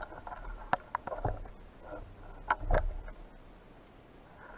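Underwater handling noise from a spearfisher's gear: irregular sharp clicks and knocks over a low rumble, with a cluster of louder knocks about two and a half seconds in.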